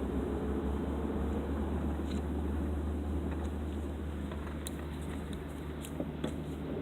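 Steady low vehicle rumble, with a few faint clicks in the second half.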